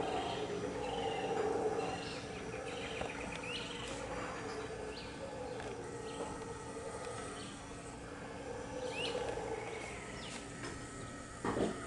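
Mantled howler monkeys howling, a low, rough drone that swells and fades, with small birds chirping over it. A couple of knocks sound near the end.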